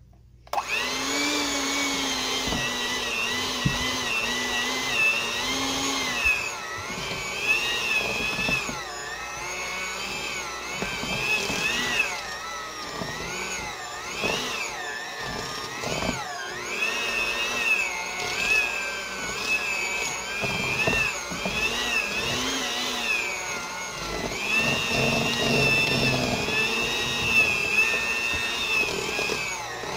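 Electric mixer running, beating a thick cream cheese and brown sugar filling; its motor whine wavers up and down in pitch as the batter loads it, starting about half a second in.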